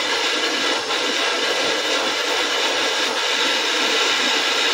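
Handheld gas torch flame hissing steadily as it heats an aluminum bracket.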